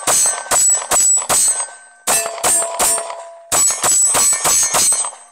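Live Free Armory AMP 9mm pistol fired rapidly, about a dozen shots in three quick strings with short pauses between them. A metallic ringing hangs on after the shots.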